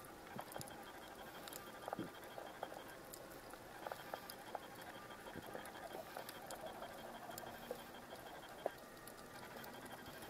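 Faint underwater crackling with many scattered sharp clicks, one louder click late on, and a faint regular ticking high in pitch, as picked up by a camera submerged over a coral reef.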